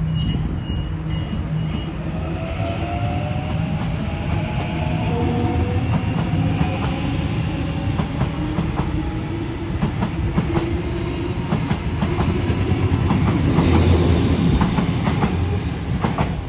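Sydney Trains double-deck electric train running past on the near track. Its traction motors whine in a rising pitch as it gathers speed, then its wheels clatter over the rail joints and points, loudest near the end. A high beep repeats about three times a second in the first two seconds.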